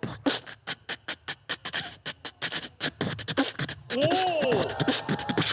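A man beatboxing a basic beat: rapid mouth kick-and-snare clicks and hissing hi-hat sounds, several a second. About four seconds in, a rising-and-falling pitched vocal sound is layered over the beat.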